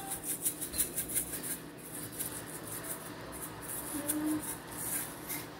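Sesame seeds rattling in a small glass shaker jar as it is shaken over dough: quick, even shakes of about five a second, loudest in the first second and a half, then fainter.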